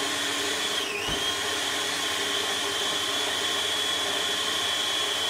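Small electric blender running steadily with a high motor whine, churning frozen fruit and soy milk into nice cream; the whine dips briefly in pitch about a second in and climbs back.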